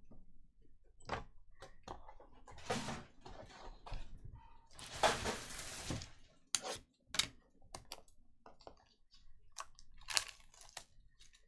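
Trading cards and their plastic packaging being handled: scattered light clicks and crinkles, with a longer rustle about five seconds in and a shorter one about ten seconds in.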